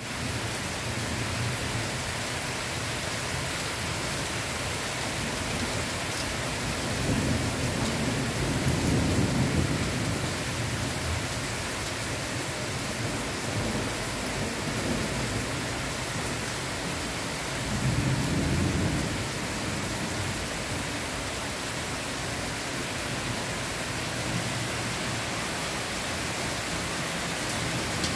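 Heavy downpour: a steady hiss of rain falling on leaves, grass and pavement, with two low rumbles of thunder rising over it, a longer one in the first half and a shorter one later.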